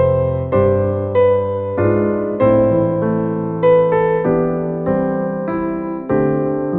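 Background music: a piano or electric piano playing a gentle melody, the notes struck about every 0.6 seconds in a steady rhythm, each one fading before the next.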